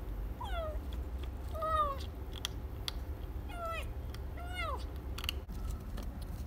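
A calico kitten meowing four times: short, high calls that fall in pitch. Between the calls come a few small crunching clicks as it eats dry kibble.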